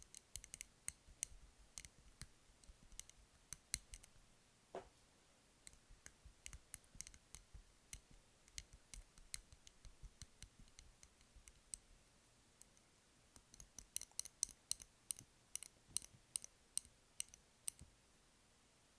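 Close-miked tapping and crackling around candles: crisp, light clicks in irregular quick runs, thickest near the end, with one short squeak about five seconds in.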